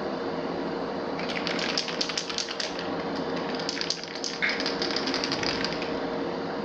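Aerosol primer can being shaken, its mixing ball rattling in quick runs of clicks, about six a second, in two bursts. A spray booth's extraction fan hums steadily underneath.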